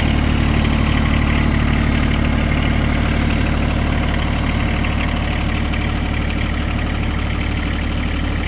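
A vehicle's engine idling steadily, warming up after a cold start on a freezing morning.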